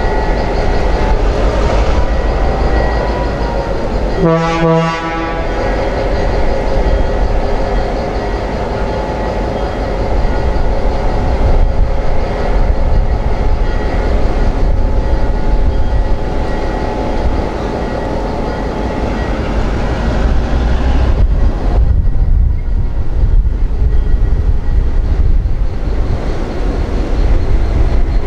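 EMD diesel road-switcher locomotive's engine running steadily, with one short horn toot about four seconds in.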